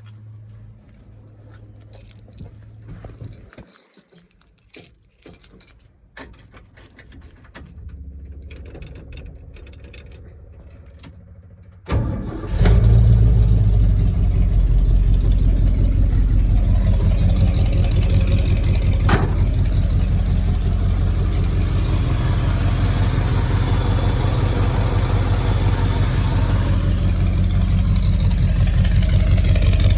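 Keys jangling and small clicks, then about 12 s in the 1979 Ford F350's big-block V8 starts and keeps running steadily with an even pulse.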